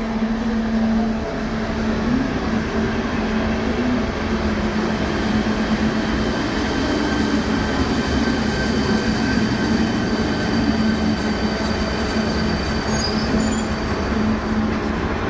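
ČD Class 471 CityElefant double-deck electric multiple unit running along the platform track. Its wheels on the rails make a steady rumble, with a low hum and faint high whining tones over it.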